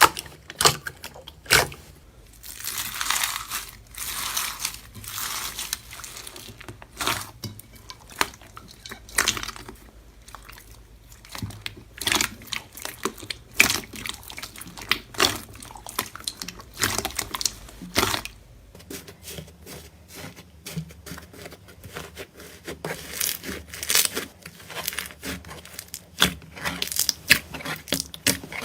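Slime being squeezed and poked by hand, with rapid sticky crackles, pops and clicks, and a longer crinkly rustle a few seconds in.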